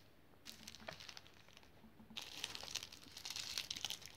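Small clear plastic bags of diamond-painting drills crinkling as they are handled. There is a short spell about half a second in, then a longer, busier one from about two seconds in.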